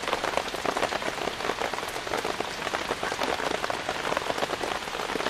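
Heavy downpour pattering steadily on a tarp shelter: a dense, even patter of drops.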